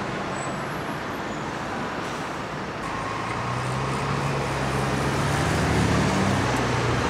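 Street traffic noise, with a bus engine's low hum growing louder from about three seconds in as the bus passes.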